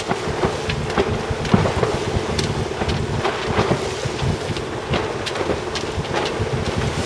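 Wind buffeting the microphone on the deck of a sailing yacht in a choppy sea, with water rushing past the hull. Frequent irregular knocks and taps sound over it, with a faint steady hum underneath.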